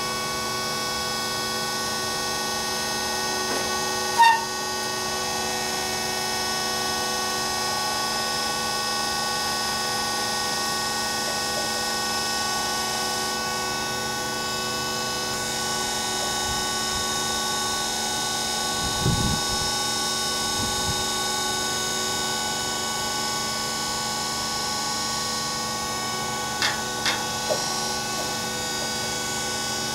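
Diamond copying saw running steadily, a constant machine whine with many held tones. A few short knocks break through: one a few seconds in, a low thud near the middle and three quick ticks near the end.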